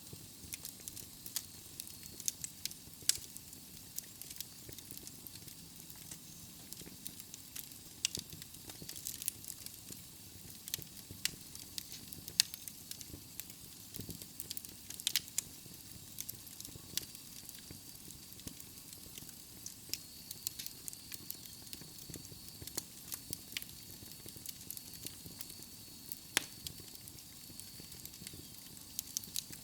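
Wood logs burning in a fireplace, crackling with irregular sharp pops, a few much louder than the rest, over a low steady hiss of the fire.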